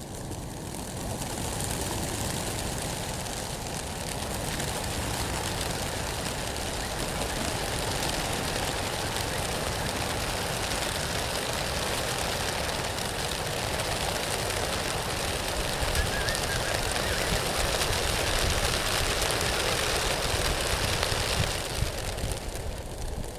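A large flock of racing pigeons taking off together on release from a transport truck's crates: the dense, steady rushing of massed wingbeats, starting about a second in and dropping away suddenly near the end.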